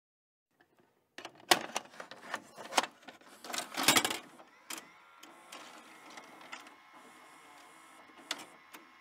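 Videocassette machine mechanism clicking and clunking, with a cluster of sharp clicks and knocks about a second in. It settles into a quieter steady whir with scattered light clicks and one last sharp click near the end.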